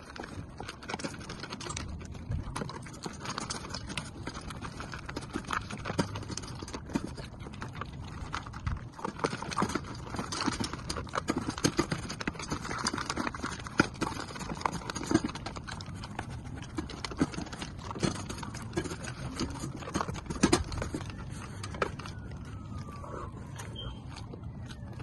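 Two dogs, a German Shepherd and a Belgian Malinois, eating kibble and raw meat from stainless steel bowls: steady crunching and chewing with many short sharp clicks.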